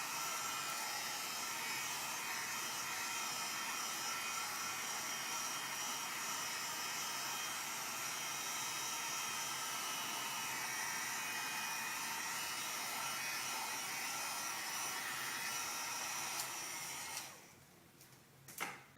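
Heat gun blowing steadily on a raised heat setting while shrinking shrink-wrap film, switched off abruptly about two seconds before the end, followed by a light click.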